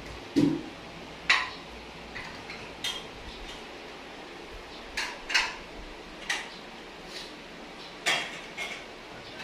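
Plates and eating utensils clinking and tapping as two people eat, about eight separate sharp clinks at irregular intervals, the first with a dull thump.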